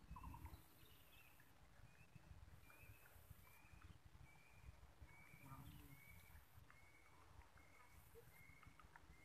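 Faint outdoor quiet with a bird calling a long run of short, high notes, about two a second, over a low rumble.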